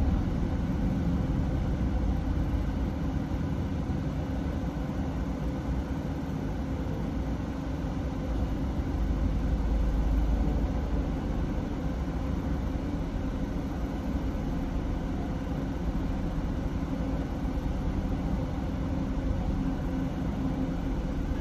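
Car engine idling, heard from inside the cabin: a steady low rumble that swells a little about ten seconds in.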